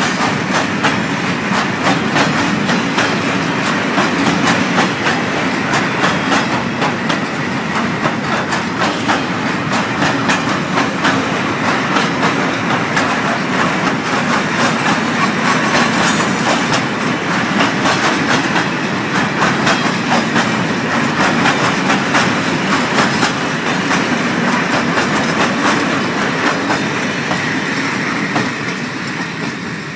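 Freight train of loaded ballast hopper wagons rolling past, with a steady rumble and a dense clatter of wheels over rail joints. It begins to fade near the end as the tail of the train goes by.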